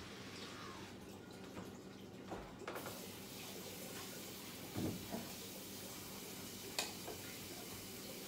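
Quiet room tone: a steady faint hum and hiss, with a few soft knocks and a light click as the suspension-trainer straps and handles swing.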